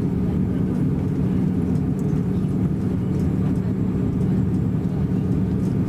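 Airbus A330-300 cabin noise while taxiing: a steady low rumble with a constant hum from the engines at taxi power and the airliner rolling along the taxiway.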